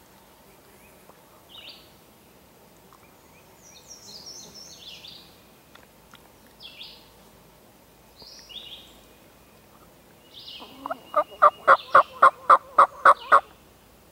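Small songbirds chirping, then near the end a run of about ten loud, evenly spaced hen-turkey yelps, about four a second, made on a turkey call to bring in a gobbler.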